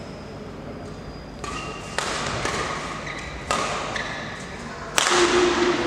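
Badminton rally: sharp racket strikes on the shuttlecock, four of them, the last about five seconds in the loudest, echoing in a large hall, with brief shoe squeaks on the court between hits.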